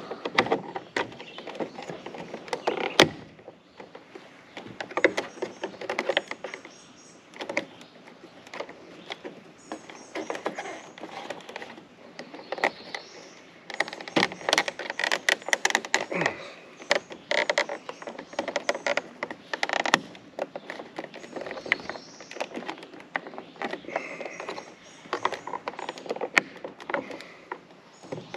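Irregular clicks, knocks and scraping of gutter sections being handled and pushed together as they are fitted into place.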